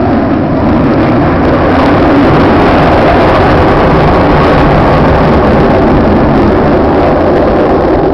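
Four F/A-18 Hornet fighter jets flying past in formation: a loud jet-engine roar that builds over the first second or two, then holds.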